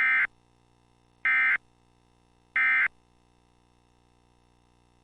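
Three short, identical electronic data bursts about a second apart. This is the Emergency Alert System's SAME digital end-of-message code (AFSK tones) that closes a broadcast tornado warning.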